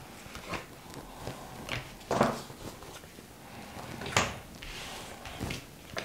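Tarot cards being handled on a table: the fanned deck gathered up, giving soft sliding and tapping with a few sharper knocks, the loudest about two and four seconds in, and a single card laid down near the end.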